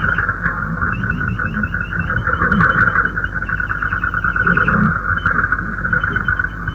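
Shortwave radio reception: a steady band of hiss and static, a fast train of short high chirps at about eight a second that drops out and returns, and a faint wavering signal underneath. This is the station audio just ahead of the Radio Baghdad identification.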